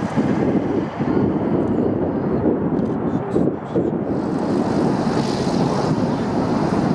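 B-17 Flying Fortress's four Wright Cyclone nine-cylinder radial engines running at climb power just after take-off, a steady low rumble.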